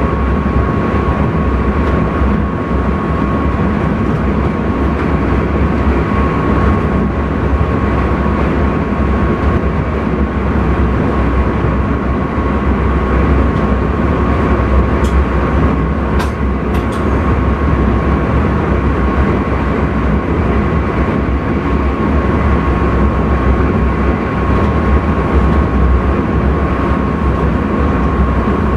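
Intercity train running at speed, heard in the driver's cab: a steady rumble of running noise with a thin constant high tone over it, and a few sharp clicks about halfway through.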